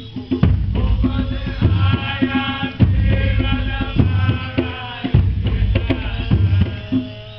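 Nyabinghi drumming: a heavy bass drum stroke about once a second under lighter hand-drum strokes, with a group of voices chanting over it.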